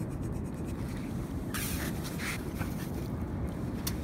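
A brass razor-clam gun being worked out of wet beach sand: two short squelching, scraping bursts about a second and a half in, then a sharp click near the end, over a steady low rumble.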